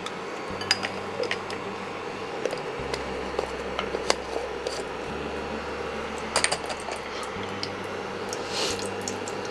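Scattered light clinks and taps of kitchen utensils against pots and containers, over a steady low background hum.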